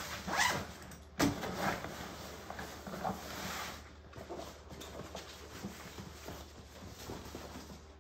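Zipper on a padded nylon carry bag pulled in a few quick strokes, with a sharp click about a second in, then the bag's fabric rustling as it is handled.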